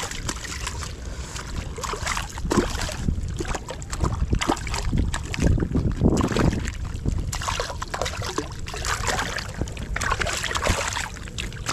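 A small hooked fish thrashing and splashing at the water's surface against the rocks as it is reeled in, with wind noise rumbling on the microphone.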